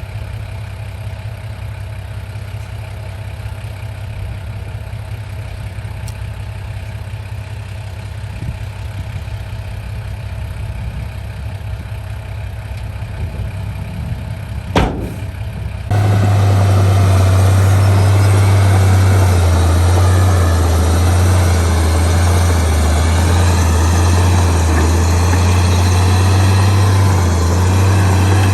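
Heavy diesel engine of earthmoving machinery running at a steady idle, with a single sharp knock about halfway through. Just after that the engine sound suddenly becomes much louder and fuller, and stays at that level.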